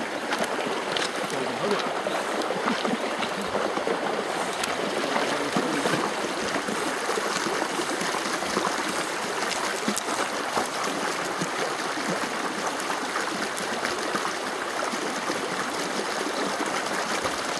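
Steady sound of a shallow, stony river running over its gravel bed, with a few faint clicks.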